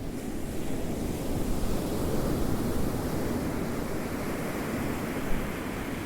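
Ocean surf: a wave swells and breaks into a rushing wash about a second in, then slowly eases off toward the end.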